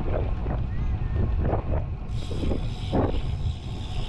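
Wind buffeting the action-camera microphone on a moving road bike. About two seconds in a steady high hiss joins as the rider stops pedalling and coasts, the rear hub's freewheel buzzing.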